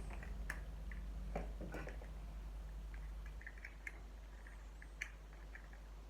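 Faint, scattered small clicks and taps, about five or six spread over the stretch, from handling SuperZings toy blind packs and their small plastic figures, over a low steady hum.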